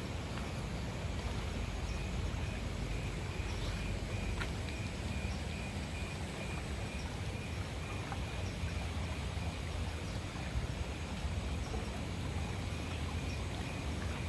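Steady outdoor background noise with a low rumble, and a faint, evenly repeated high chirp through most of it.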